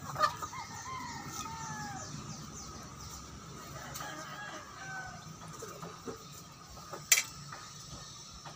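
A rooster crowing, with chickens clucking now and then; a single sharp click about seven seconds in.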